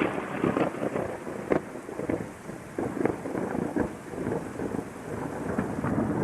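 Thunder rumbling and crackling over steady rain, the tail of a thunderclap that broke just before. The rumble eases off about two-thirds of the way through and swells again near the end.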